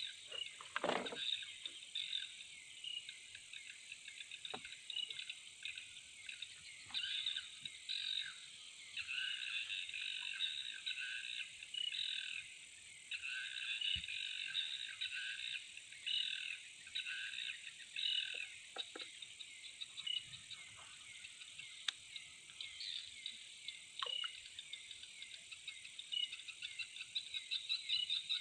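Night chorus of frogs and insects: a steady high insect trill, with frogs calling in repeated pulsing bouts that start and stop every second or two.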